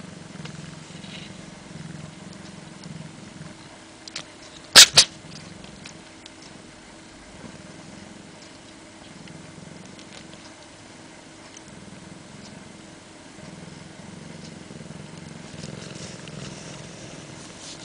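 A domestic cat sneezes once, an odd, sharp sneeze in two quick bursts about five seconds in. Around it is a soft, pulsing low purr.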